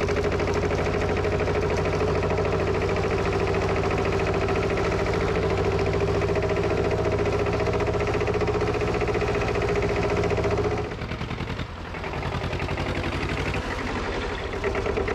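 Lanz Alldog A1806's two-cylinder diesel engine running steadily under way, a loud, fast, even chugging. About eleven seconds in the sound drops and turns thinner as the tractor is heard from beside the track, then builds again.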